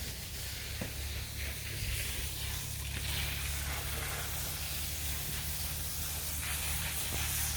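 Steady hiss of water spraying from a hose, with a low steady hum underneath.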